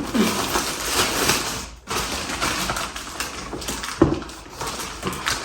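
A package being opened by hand: packaging rustling and crackling, with scattered sharp clicks and tearing.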